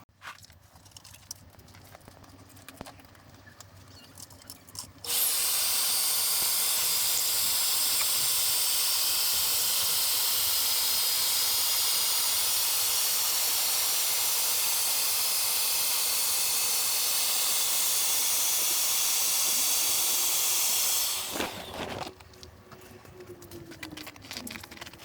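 Electric air pump running steadily, a loud even rush of air with a faint steady hum, while inflating the air skirting tubes. It starts abruptly about five seconds in and cuts off about sixteen seconds later.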